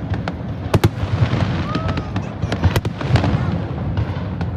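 Aerial fireworks bursting in a rapid, irregular series of sharp cracks and booms over a constant low rumble, with a brief whistle about a second and a half in.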